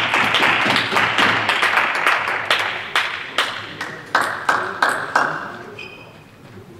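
Spectators applauding after a point, the clapping thinning out over a few seconds. It ends in a handful of single sharp claps or taps about 0.3 s apart.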